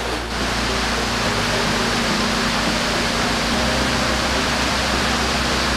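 Steady rushing of water at fish-farm tanks, with the steady hum of the farm's pump motors underneath.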